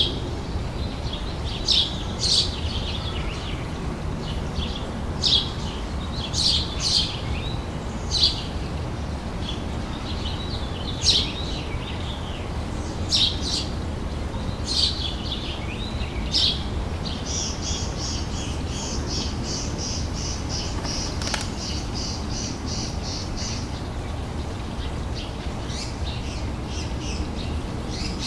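Summer outdoor ambience: small songbirds chirping in short calls at irregular intervals, over a steady low background noise. A rapid, evenly pulsed trill runs for several seconds past the middle.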